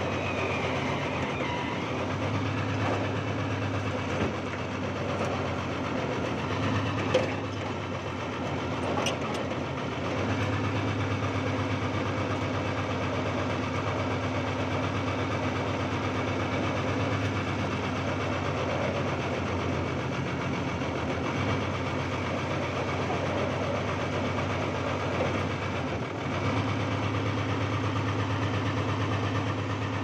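Old backhoe's engine running steadily, its low hum easing off for a few seconds twice, with a couple of sharp clicks about seven and nine seconds in.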